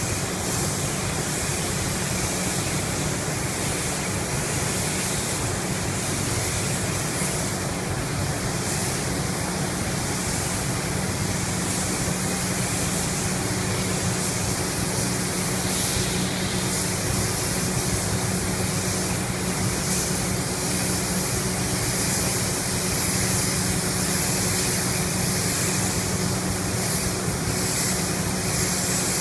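Steady hiss of compressed air and paint from an automotive spray gun laying on the colour coat, over a constant low machine hum.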